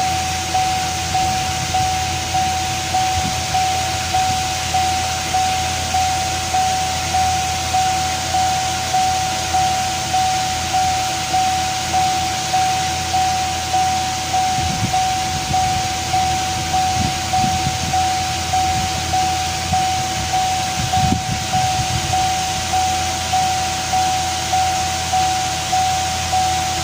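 Electronic warning chime, typical of a car's key-in or door-open chime, sounding over and over at a little more than once a second, each ding striking and then fading, over a steady hiss.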